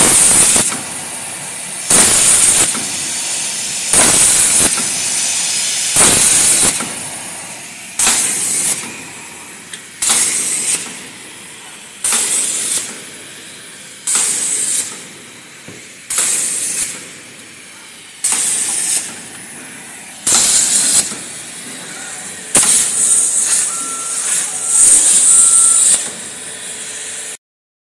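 CNC plasma cutter's torch hissing. The sound surges loudly about every two seconds and dies away between surges.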